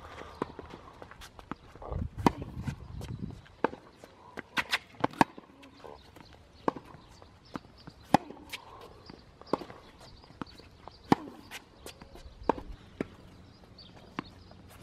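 Tennis rally on a hard court: sharp pops of the ball off the racket strings and bouncing on the court, every second or so, with shoe steps and scuffs between them. A brief low rumble comes about two seconds in.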